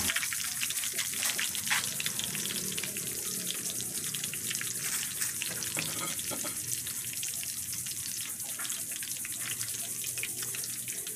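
Breaded shrimp deep-frying in a pan of hot oil: a steady sizzle full of fine crackles and pops.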